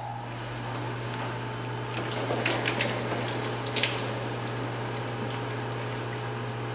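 Engine coolant trickling and dripping out of the disconnected cooling system, with a few clinks and knocks of metal parts about two to four seconds in.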